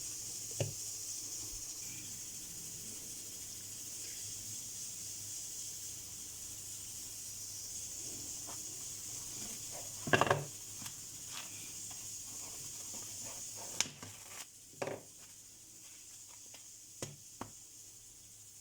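Plastic cling film being handled and wrapped around a ball of pastry dough: scattered rustles and small knocks, the loudest about ten seconds in, over a steady hiss that drops away a little before the end.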